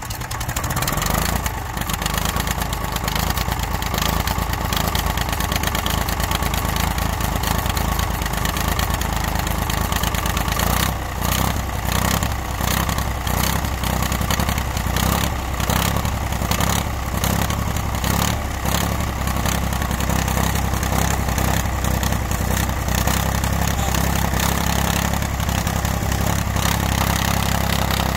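John Deere 510 tractor engine running just after a cold start. It picks up in the first second, pulses in an even beat with small dips in loudness for several seconds in the middle, then settles into a steady idle.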